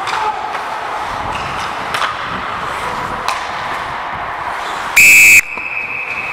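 A referee's whistle gives one short, very loud, shrill blast about five seconds in. A fainter tone at the same pitch hangs on after it.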